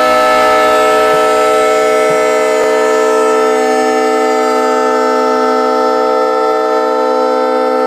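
Leslie S3L three-chime locomotive air horn sounding one long, steady chord, fed from an 11-gallon air tank; its highest overtones thin out slightly in the second half.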